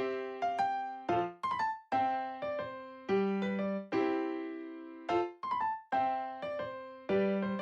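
Background music: a gentle piano tune of single notes and chords struck in a steady rhythm, each note ringing and fading.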